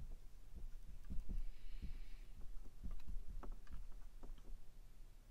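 Marker writing on a glass lightboard: short faint taps and clicks of the tip on the glass, with a brief scratchy squeak about two seconds in, over a steady low hum.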